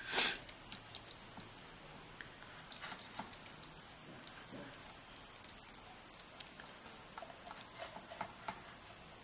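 A metal spoon scraping and tapping as it presses masala paste into the cuts of a whole raw fish in a steel dish: scattered soft clicks, with one louder scrape right at the start.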